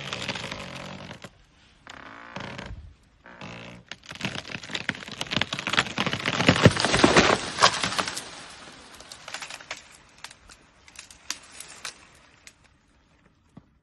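A leafless tree cracking and splintering as an African elephant pushes it over: a run of snaps, then a loud crash of breaking trunk and branches midway, then scattered snaps of twigs as it settles.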